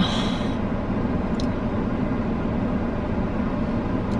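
Steady road and engine noise inside a moving car's cabin, with a short hiss right at the start.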